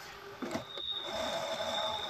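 RC scale crawler (MN99s Defender) with its small electric motor and gearbox whining steadily as it crawls over a rock, after a knock about half a second in.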